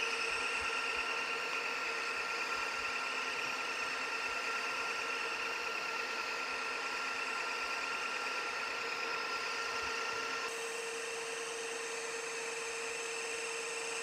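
Metal lathe running under load, the cutting tool taking a 100-thousandths roughing pass along a turned shaft: a steady hum with high, even cutting tones. About ten seconds in, one of the higher tones drops out and the sound changes slightly.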